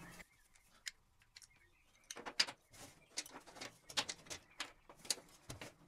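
Small metal fittings being handled on a workbench: a string of light, irregular clicks and knocks, starting about two seconds in.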